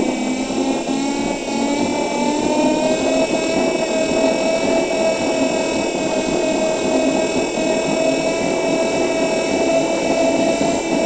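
Electric bus's traction motor whining, the pitch rising over the first three seconds or so as the bus gathers speed, then holding steady.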